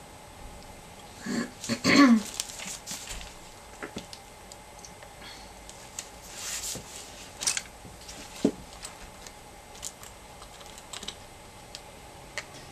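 Seashells and pebbles clicking and clattering as they are picked up by hand and set down on a canvas, with a louder cluster of clatter about two seconds in. Single light taps follow every second or two.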